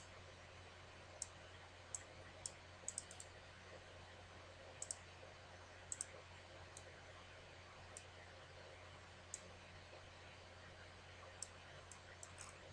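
Computer mouse clicking about fifteen times at irregular intervals, some in quick clusters, over a faint steady hum.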